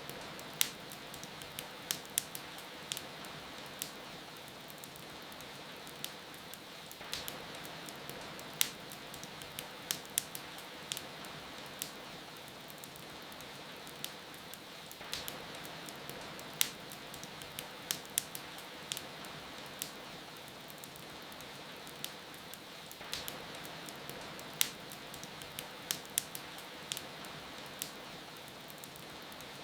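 Steady hiss of rain mixed with a wood fire crackling, with sharp, irregular pops of burning wood coming several times a second.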